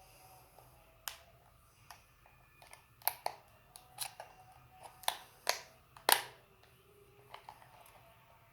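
Irregular small clicks and taps of hands handling the plastic case and parts of a laptop charger being taken apart, about a dozen in all, the sharpest about six seconds in.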